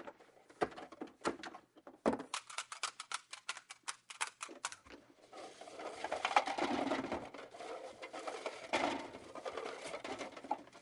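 Desk items being packed into a cardboard box: a run of quick light taps and clicks, then a longer rattling clatter as stacks of disposable cups are swept off the desk into the box.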